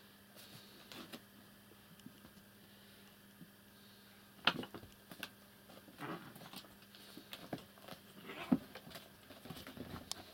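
Soft, scattered thumps and rustles of house cats tussling on a carpet under a stool, with two sharper knocks about four and a half and eight and a half seconds in.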